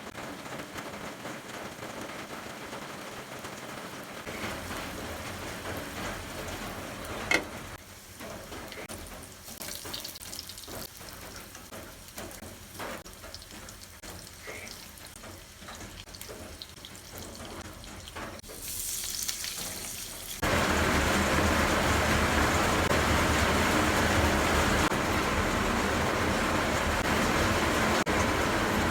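Pork steak frying in a pan with a steady sizzle. A sharp knock comes about seven seconds in and light clicks follow. About two-thirds through, the sizzle suddenly gets much louder and stays loud.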